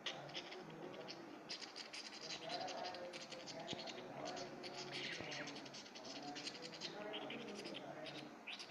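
Lovebirds chattering: a steady stream of rapid, scratchy chirps and clicks.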